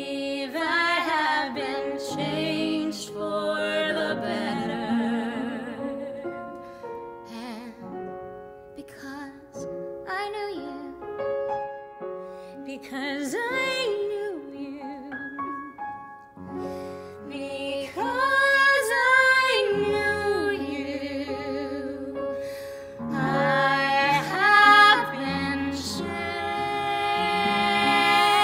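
Two women singing a slow show-tune duet with wide vibrato over piano and orchestra; a low bass note comes in about halfway through.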